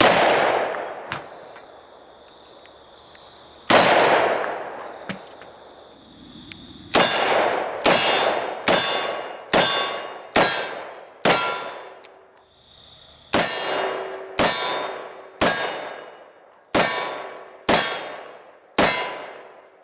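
Ruger GP100 .357 Magnum revolver firing at steel targets, most shots followed by the ringing clang of a hit steel plate. Two shots a few seconds apart, then two strings of six rapid shots, under a second apart, with a short pause between the strings.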